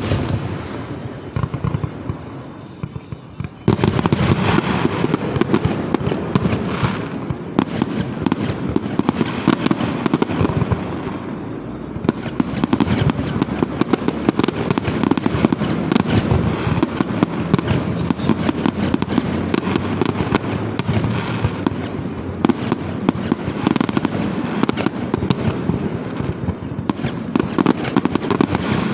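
Aerial fireworks display: a loud bang, then about four seconds in a dense, continuous barrage of booms and crackling bursts that keeps up without a break.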